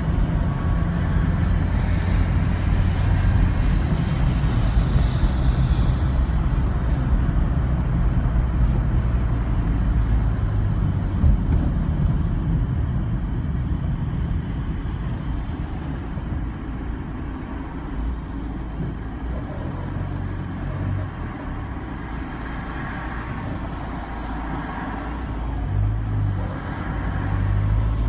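Car driving, engine and road noise heard from inside the cabin. The engine note is strong at first, drops away about halfway through and picks up again near the end.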